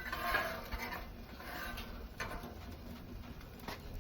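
A few sharp clicks and taps of a spatula working on a Blackstone griddle top, about two seconds in and again near the end, over a low steady background hum.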